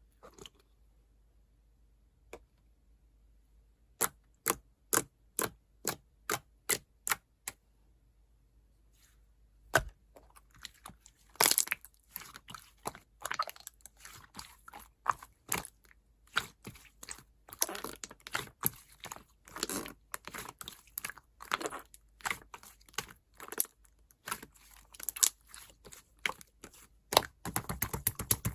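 White slime being played with by hand: about eight evenly spaced sharp clicks, roughly two a second, from about four seconds in. From about ten seconds in come dense, irregular crackling clicks and pops.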